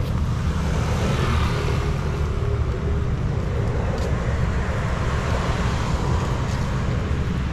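Steady outdoor background noise, a continuous low rumble like road traffic, with no speech.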